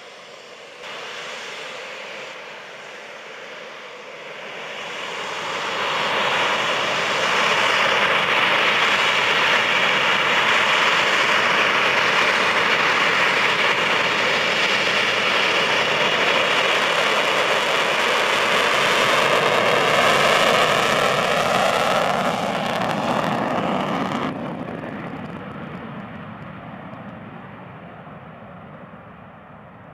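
Eurofighter Typhoon's twin EJ200 turbofan engines as the jet rolls along the runway. The sound builds about four seconds in to a loud, steady rushing roar with a high whine over it, then turns duller and fades away over the last few seconds.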